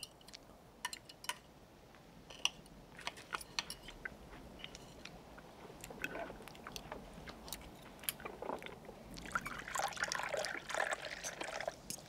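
Knife and fork clicking and scraping on a china plate while cutting into a poached egg, in scattered light taps. About nine seconds in, coffee is poured from a metal pot into a cup for a couple of seconds.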